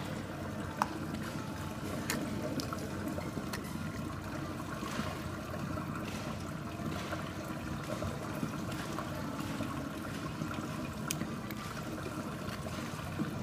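Water running and trickling steadily into a shallow tank, with a few sharp clicks.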